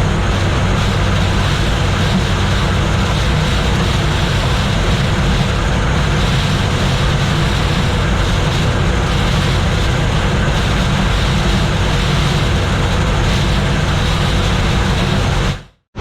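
Gleaner combine running steadily while shelling corn, a constant low engine hum under the even clatter and rush of the threshing machinery. It cuts off abruptly near the end.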